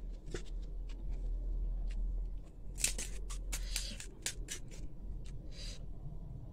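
Crisp crackling clicks as a hollow fried panipuri shell is cracked open with the fingers, starting about three seconds in. A brief hiss follows near the end, over a low steady hum.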